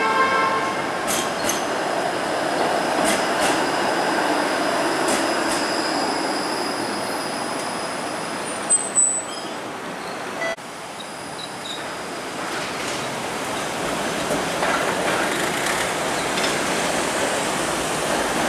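Bombardier Flexity Outlook low-floor streetcar running past on street track: a steady rumble with a thin, high wheel squeal, and two sharp clacks about nine seconds in. After an abrupt change about ten seconds in, steady city street traffic noise.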